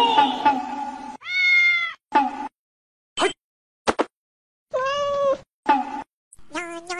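A domestic cat meowing: about five separate meows with silence between them, the two longest rising and falling in pitch, and a single sharp click among them.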